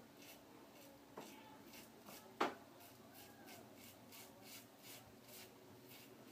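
Mercur 34C double-edge safety razor scraping through lathered three-and-a-half-day stubble in short, quick strokes, about three a second. A louder sharp click about two and a half seconds in.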